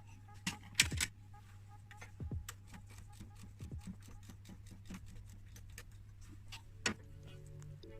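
Hand tools clicking and knocking on metal during removal of the engine's timing belt, the loudest knock about a second in and a quick run of light ticks through the middle, over a steady low hum.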